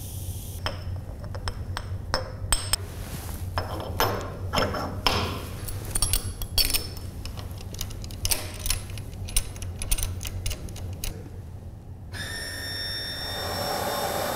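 Stainless steel clinks, knocks and rattles as powder is tipped in and the cover clamps and fittings of the 5-litre Cyclomix high-shear mixer are handled. About twelve seconds in, the mixer's motor starts running with a steady whir.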